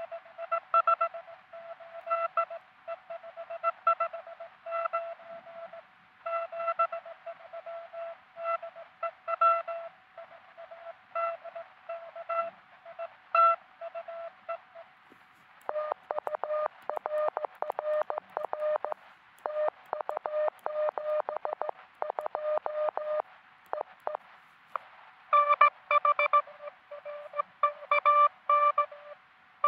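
Morse code tones from a truSDX QRP transceiver during a CW contact. For about the first half a clean keyed tone is sent at a steady pace. Then a slightly lower-pitched tone comes in, keyed faster, over band noise, and the keyed tone returns near the end.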